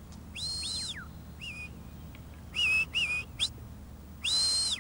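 A sheepdog handler's whistled commands to a working sheepdog: a run of short, high whistles that rise and fall in pitch, the last one longer, held and then dropping away.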